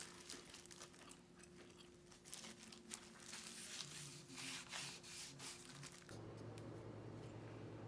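Faint crinkling and rubbing as plastic-gloved hands work a cloth to wipe stain onto a wooden board, in scattered short strokes. About six seconds in the rubbing stops and a faint steady low hum remains.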